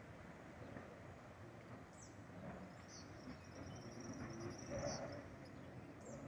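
Faint outdoor ambience with short high-pitched animal chirps every second or so, and a thin high trill held for about two seconds in the middle.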